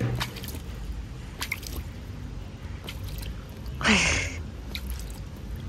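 A dog snapping and biting at water in a paddling pool, making wet smacking, squishing and dripping noises, with one louder splash about four seconds in.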